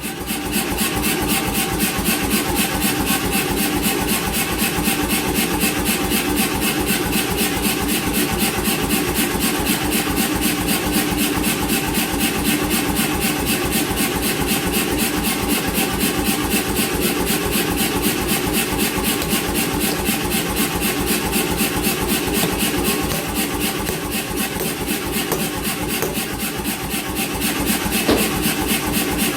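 88 lb C41 self-contained air power hammer running, delivering a fast, even run of blows over the steady hum of its motor and compressor.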